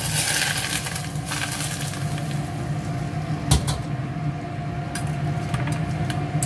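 Hot vegetable oil poured onto chopped garlic, chili and herbs in a stainless steel bowl, sizzling in a loud hiss for about the first second and then dying away. A single sharp knock comes about three and a half seconds in, with a few lighter clicks later and a low steady hum underneath.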